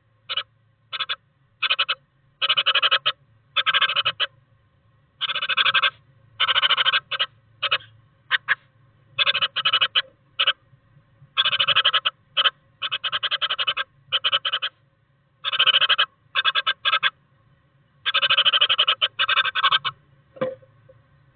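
A male great tit shuffling and scrabbling in the moss lining of its nest box: irregular bursts of scratchy rustling, each up to about a second long, heard close up inside the wooden box.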